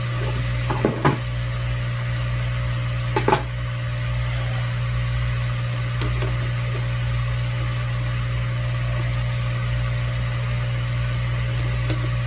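Steady low machine hum, with a few short knocks and handling clatter about one and three seconds in as a laptop logic board is picked up and set down on the bench.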